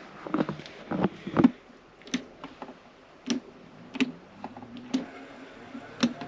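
A series of sharp clicks and light knocks at irregular intervals, roughly one a second, some with a short dull thud to them.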